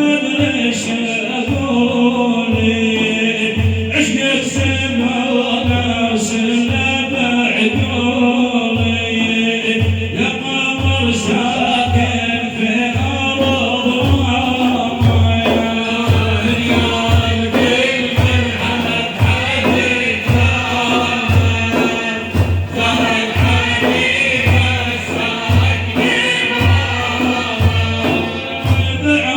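Madih, an Islamic praise song for the Prophet: male voices singing a chant-like melody over a steady low drum beat of about one stroke a second.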